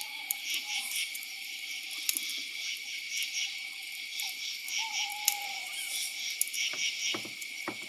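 Steady chorus of insects chirping, high-pitched and pulsing. Near the end come two short soft knocks.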